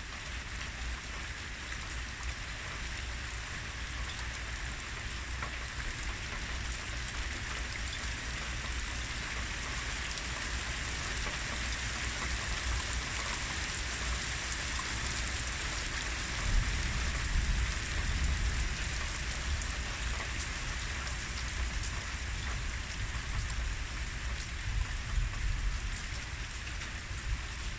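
Heavy rain falling steadily during a thunderstorm, with a low rumble that swells about halfway through and fades over a few seconds.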